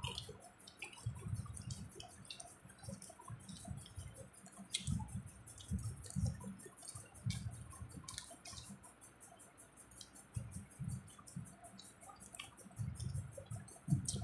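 Several people eating fuchka (pani puri): quiet wet chewing and small crunches of the crisp shells, with soft clicks and drips as the shells are dipped in the spiced water. Irregular soft thumps come and go.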